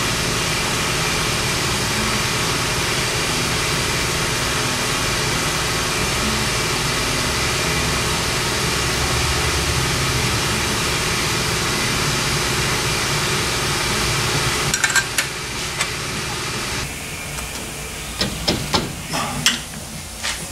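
Pneumatic air hammer running steadily on a steel tubular control arm, chiseling out the welded-in nuts, for about seventeen seconds before stopping. A few sharp metallic clicks and knocks follow near the end.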